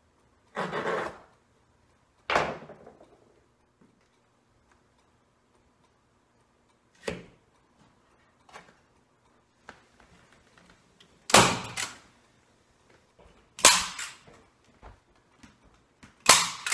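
Hand staple gun firing staples through pool table cloth into the wood at a corner pocket, fastening the cloth. About seven sharp snaps come at irregular gaps, some in quick pairs.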